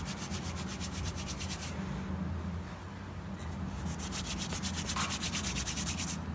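Palms rubbing dried oregano together to crumble it over a bowl of flour: two bouts of fast, rhythmic dry rubbing, the second starting about halfway through.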